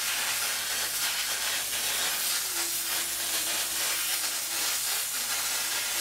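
Steam cleaner hissing steadily as its nozzle is worked along a mattress seam, heat-treating it against bed bugs.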